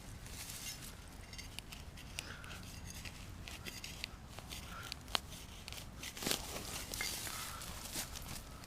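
Quiet digging in soil with a shovel: scattered soft scrapes and small clicks, with one sharper click about five seconds in and a louder stretch of scraping near the end.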